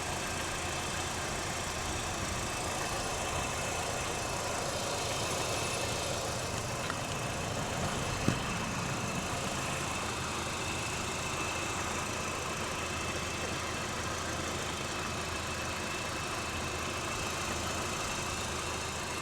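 2012 Honda Civic LX's 1.8-litre four-cylinder engine idling steadily under an open hood with the air conditioning on max, with a faint steady high whine. A single sharp click comes about eight seconds in.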